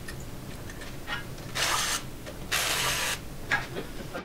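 Two short bursts of compressed-air hiss from a pneumatic tool, the second a little longer, over a faint steady low hum.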